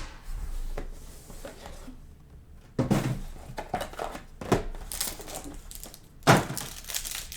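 Trading card pack wrappers crinkling and tearing as packs are opened and cards handled, with louder sharp rustles about three seconds in, in the middle and near the end.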